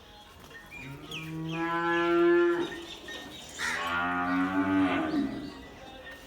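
Dairy cattle mooing: two long, drawn-out moos, the second about a second after the first ends and dropping in pitch as it fades.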